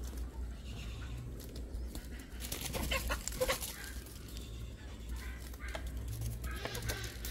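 Chickens clucking on and off over a steady low rumble, with a few sharp knocks about three seconds in.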